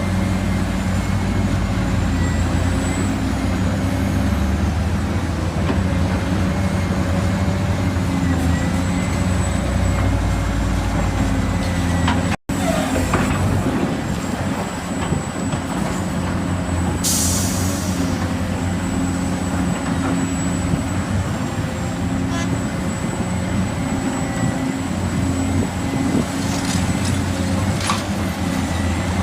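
Heavy diesel machinery engines running steadily, with a short air hiss like an air brake about 17 seconds in. The sound drops out for an instant about 12 seconds in.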